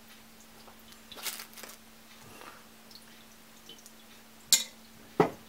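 Perforated pre-filter being fitted into the drinking opening of a ceramic cat fountain: light handling rustle about a second in, then two sharp clicks near the end as it knocks into place against the glazed ceramic, over a faint steady hum.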